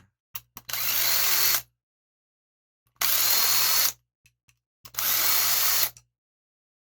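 Impact driver running in three short runs of about a second each, backing out the loosened crankcase screws of a 26cc two-stroke marine engine, with a few brief trigger blips between runs.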